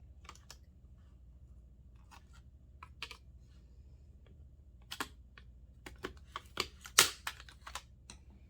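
Irregular light clicks and taps of small plastic and circuit-board parts being handled, sparse at first and more frequent in the second half, the sharpest about seven seconds in.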